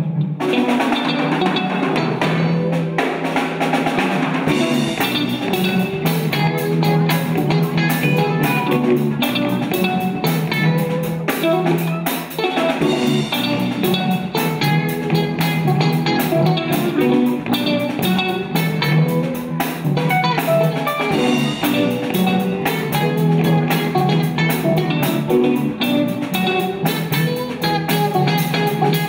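A live rock band playing through amplifiers: two electric guitars and a bass guitar over a drum kit, the drums coming in right at the start.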